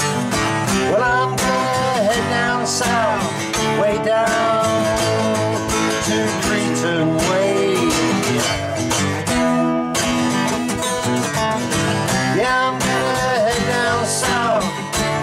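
Two acoustic guitars strummed together, with a man singing a melody over them.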